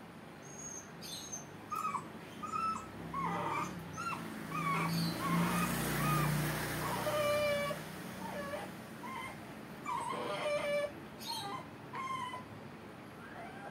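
Puppy whimpering in a string of short, high whines that bend up and down, while its cropped ears are stitched. A stretch of rustling noise about five seconds in.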